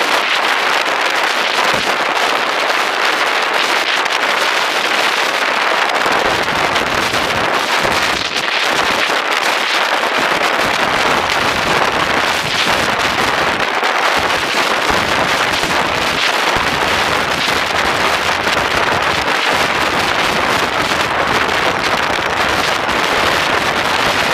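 Steady, loud wind rush over the camera microphone of a motorcycle riding at speed, with deeper buffeting that comes and goes from about six seconds in.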